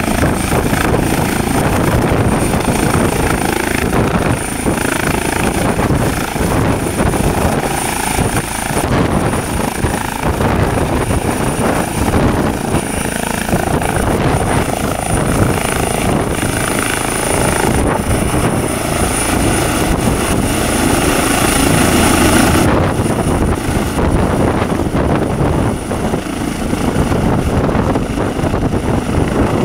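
Airbus Helicopters H135 (Eurocopter EC135) twin-turbine helicopter lifting off and climbing away: loud rotor noise with a steady high-pitched whine, which drops away suddenly about three-quarters of the way through.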